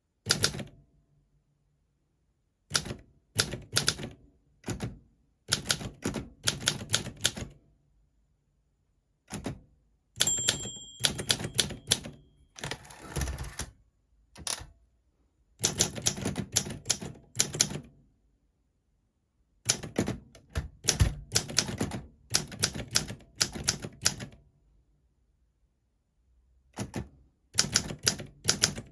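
Olympia SM4 manual portable typewriter being typed on: quick runs of key strikes in bursts, separated by short pauses. About ten seconds in a bell rings once, followed by a longer rattling sweep that fits the carriage being returned for a new line.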